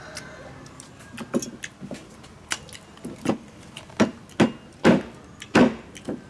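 Eating noises from gnawing and sucking meat off grilled bones: about ten irregular sharp clicks, smacks and knocks, louder in the second half.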